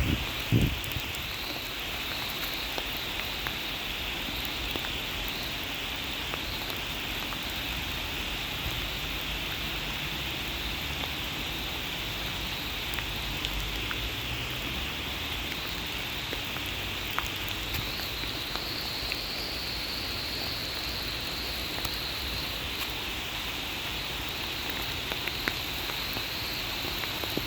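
Steady rain falling, an even hiss with a few scattered drop ticks. Two low bumps at the very start.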